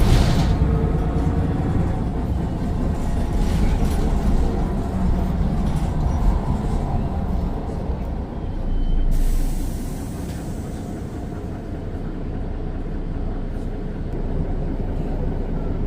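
Mercedes-Benz Citaro O530 bus's Daimler OM906 6.4-litre inline-six diesel running with a steady low rumble. About nine seconds in, a sudden hiss of compressed air being released fades out over a second or so.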